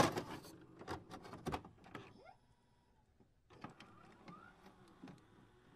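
Electronic intro sound effects: a quick run of clicks with a few short rising sweeps, pausing briefly about halfway through before more clicks and a sweep.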